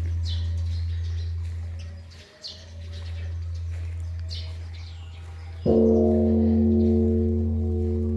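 Large bronze Korean Buddhist temple bell (beomjong) ringing with a deep hum that fades and swells. It is struck again, with a wooden striking log, about two-thirds of the way through, and starts a fresh ring of several tones. Small birds chirp throughout.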